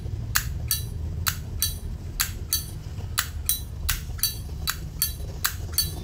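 Zippo lighter lid flipped open and snapped shut over and over, about seven times: sharp, clear metallic clicks in pairs, roughly one open-and-close a second.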